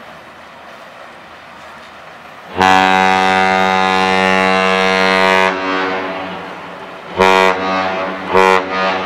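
Great Lakes freighter's deep horn sounding one long blast of about three seconds, then two short blasts: the long-short-short salute signal.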